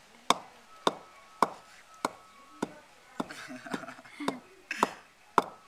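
A metal pipe pestle pounding coffee beans in a small clay mortar: about ten sharp knocks in a steady rhythm, a little under two a second.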